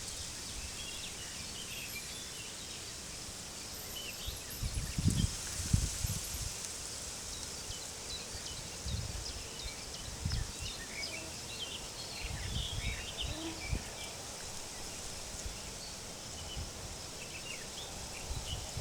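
Small birds chirping and twittering over steady wind, with low gusts of wind rumbling on the microphone now and then.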